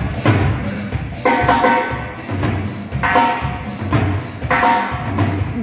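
Live cumbia band playing on stage during a sound check: a steady drum beat with a melodic phrase that comes back about every second and a half.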